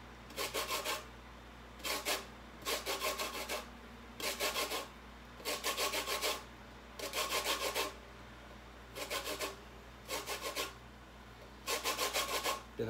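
Orange peel being grated on a stainless steel box grater: repeated bursts of quick rasping strokes with short pauses between them, the zest falling into the bowl.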